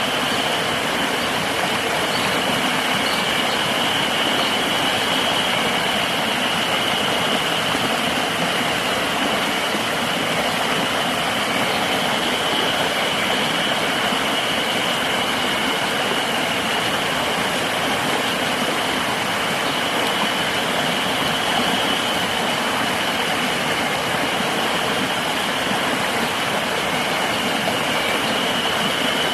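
River water rushing steadily, with a continuous high-pitched insect drone over it.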